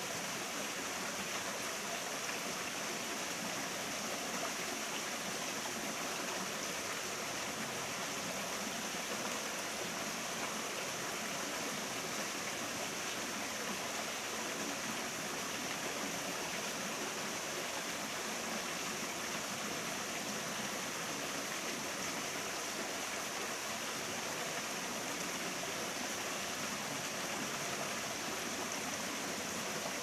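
Mountain stream water running steadily over rocks.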